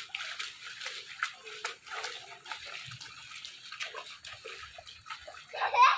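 Children's feet splashing and stamping through ankle-deep rainwater on a flooded lawn: a run of quick, irregular splashes.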